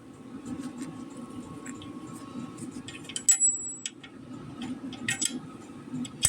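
Small steel mini-bike axle parts (axle, thrust washer, bearings) clinking and tapping as they are handled. About three seconds in comes one sharp clink that rings briefly with a high tone, and there is another short cluster of clinks near the five-second mark, over a steady low hum.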